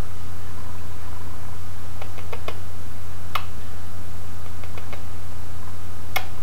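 Indian ringneck parakeet giving beak kisses, a scatter of short sharp beak clicks and smacks, a few close together and a couple louder, over a steady low electrical hum.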